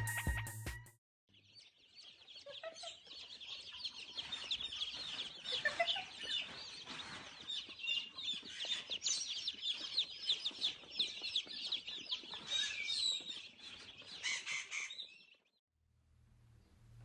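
A crowd of young chicks peeping, many short high cheeps overlapping in a steady chorus that stops suddenly near the end. A second of background music is cut off just before it.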